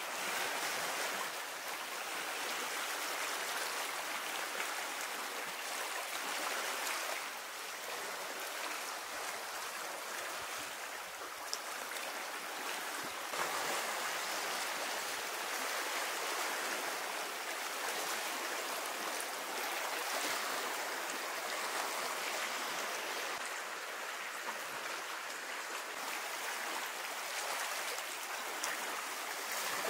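Sea waves washing on the shore: a steady rush of water that swells and eases slowly.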